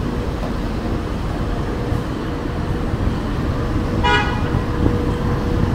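Steady city-street traffic noise from passing vehicles, with one short vehicle horn toot about four seconds in.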